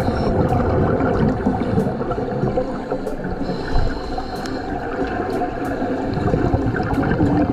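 Muffled underwater bubbling and gurgling, the sound of scuba divers' exhaled air from their regulators heard under water in a pool, as a dense, even rumble.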